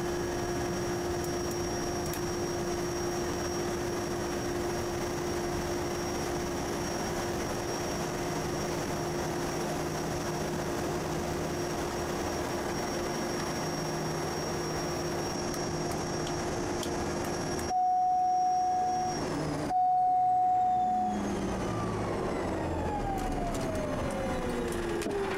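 Quest Kodiak 100's PT6A turboprop running at idle with a steady whine, then shut down. Its whine falls steadily away as the turbine spools down near the end. About two thirds of the way in, a loud steady warning tone sounds twice, with a short break between.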